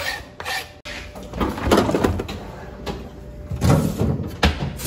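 Refrigerator being opened and its clear plastic crisper drawer slid out, with loud clunks and scraping about two seconds in and again near the end.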